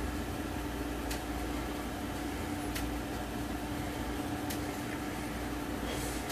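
Steady mechanical hum with one constant mid-low tone, broken by a few faint ticks.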